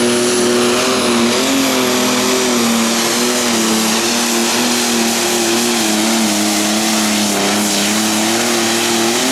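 Turbocharged diesel engine of a John Deere Light Pro Stock pulling tractor running flat out under heavy load as it drags the weight sled, its pitch held high and wavering slightly.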